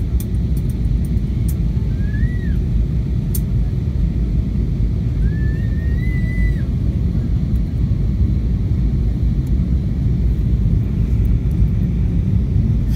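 Steady low rumble of engine and airflow noise inside the cabin of an Airbus A320 on approach. Two brief high whistle-like tones sound over it, one about two seconds in and a longer one a few seconds later.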